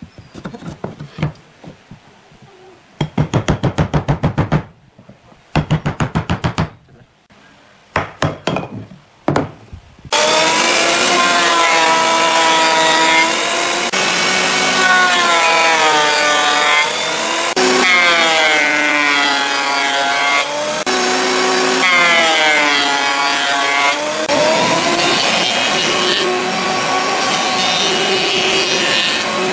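Hammer striking a chisel on wood in several quick runs of taps. About ten seconds in, a thickness planer takes over, running loud with its pitch sagging and recovering several times as the cutterhead takes each cut.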